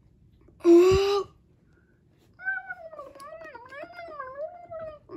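A high voice making wordless, cat-like cries. A short loud call about a second in, with a low thump under it, is followed by a longer call of about two and a half seconds that wavers up and down in pitch. The cries stand for characters arguing in sounds that cannot be understood.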